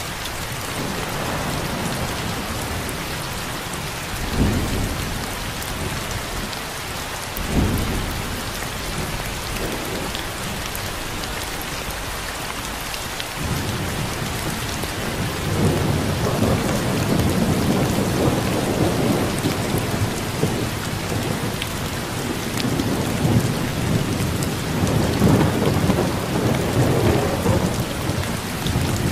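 Heavy rain falling steadily in a thunderstorm. Two short, sharp thunderclaps come about four and seven seconds in, then long rolling thunder rumbles through most of the second half.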